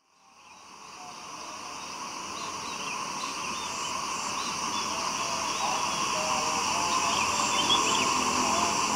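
Rural outdoor ambience fading in from silence: a steady, many-layered buzz of insects with scattered short bird chirps over it.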